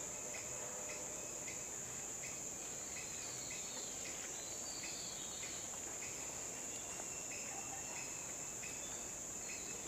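Insect chorus outdoors among trees: a quiet, steady high-pitched buzz, with softer short chirps repeating about twice a second.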